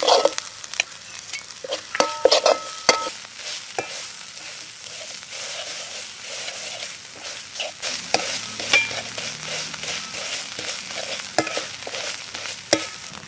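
Metal spatula scraping and knocking against a steel wok in irregular strokes while chopped dried red chili frying in oil sizzles with a steady hiss.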